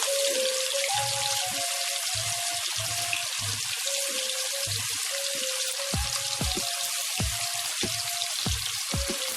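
Small pieces of chicken sizzling steadily as they deep-fry in hot sunflower oil in a kadai, with background music carrying a steady beat.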